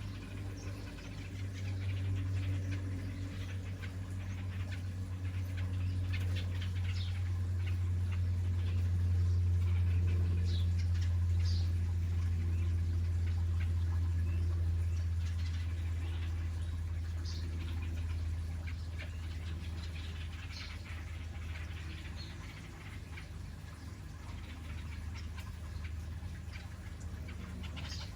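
Small birds chirping, with short high calls scattered through, over a steady low hum that is the loudest sound.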